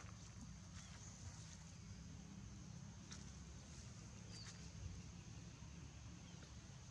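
Near silence: faint outdoor ambience, a low rumble and a steady high hiss, with a few faint clicks.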